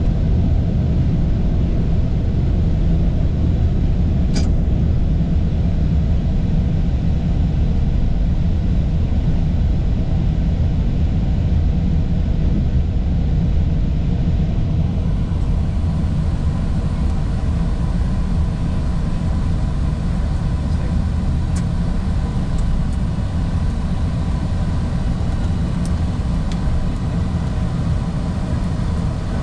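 Steady low rumble heard inside an airliner's cockpit during the landing roll on the runway: engine and wheel noise as the jet slows. A short click comes about four seconds in.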